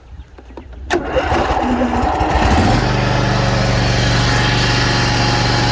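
A Dixie Chopper Iron Eagle zero-turn mower's 23-horsepower Briggs & Stratton engine being started: a click about a second in, then the electric starter cranks for under two seconds before the engine catches and settles into a steady idle.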